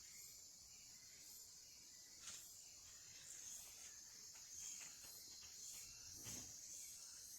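Faint, steady chorus of chirping insects, with a couple of soft knocks, one about two seconds in and a duller thud about six seconds in.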